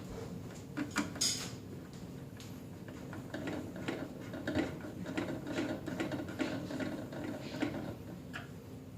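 Small screws being driven with a hand screwdriver into the plastic cover of a Caravel lever espresso machine: a couple of sharp clicks about a second in, then a run of quick clicks and scraping from about three seconds in to near the end.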